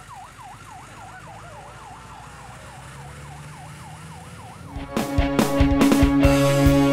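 Ambulance siren wailing in a fast up-and-down sweep, about three to four cycles a second, growing fainter as the vehicle drives away. About five seconds in, a loud music sting with sharp beats cuts in over it.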